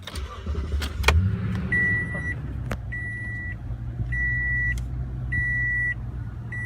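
The 2014 Toyota Tundra's 5.7-litre V8 starts about a second in with a click and then idles with a steady low hum. Over it the truck's dashboard warning chime beeps five times, a little more than once a second.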